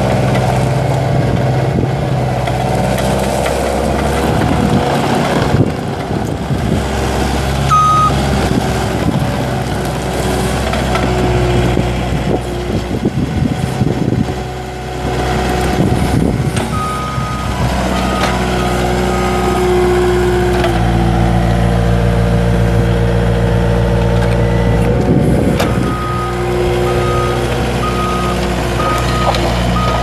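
Bobcat T250 tracked skid steer's Kubota V3300 four-cylinder turbo diesel running steadily as the machine drives on gravel, its engine note stepping up partway through. Through the second half its backup alarm beeps about once a second in two stretches.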